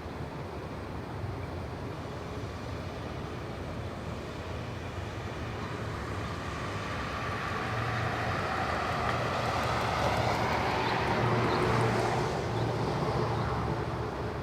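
Residential street ambience: a steady low rumble of background traffic, with a vehicle approaching and passing by. It grows louder from about six seconds in, peaks a couple of seconds before the end, and its tone drops as it goes past.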